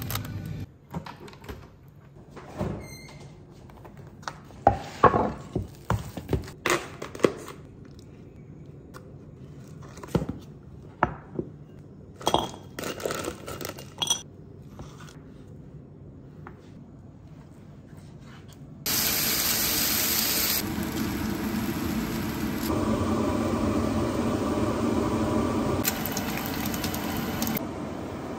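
Kitchen handling sounds: scattered clicks, knocks and rustles as food and packaging are handled, such as frozen mixed vegetables being tipped into a bowl. From about two-thirds of the way through, a steady hiss from cooking on the stove takes over, its level jumping at several edit cuts.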